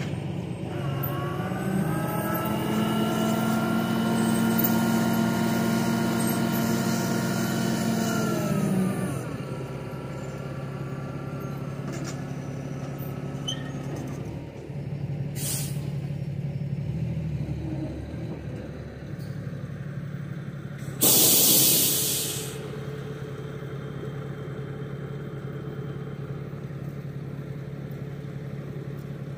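Freightliner roll-off truck's diesel engine held at raised revs for about eight seconds while the hoist sets the roll-off container down, then falling back to a steady idle. A short hiss of air comes near the middle. About 21 seconds in comes a loud hiss of air brakes, the loudest sound here.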